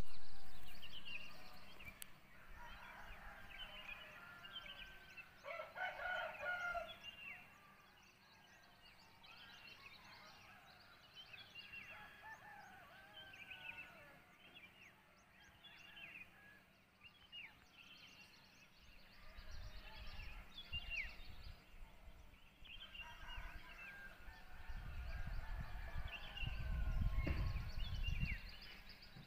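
Village dawn sounds: roosters crowing, one loud crow about six seconds in, over many small birds chirping. A low rumble comes in during the last ten seconds.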